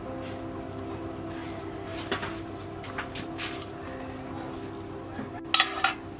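Metal clinks against a stainless steel cooking pot of boiling winter melon: a few light knocks, then a louder cluster of clinks near the end.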